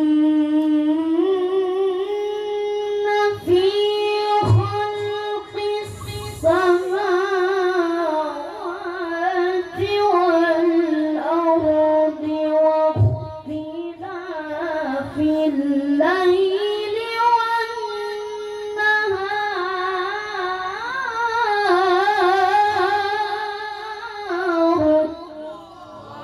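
A child qari chanting Qur'an recitation in a high voice, in long melismatic phrases with wavering, ornamented notes held almost without a break; the phrase ends shortly before the close.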